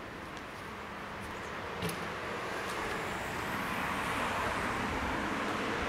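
A road vehicle approaching, its tyre and road noise growing slowly and steadily louder, with one short click about two seconds in.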